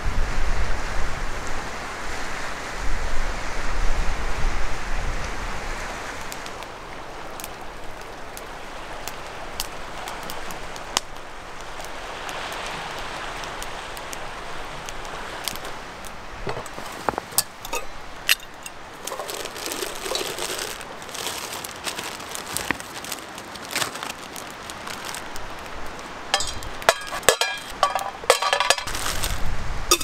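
Strong wind gusting through the trees for the first few seconds, then easing to a steady rush. Later come scattered clicks and knocks of a metal camp kettle being set on a rock and handled, with a quick run of small metallic clicks near the end as its lid is worked.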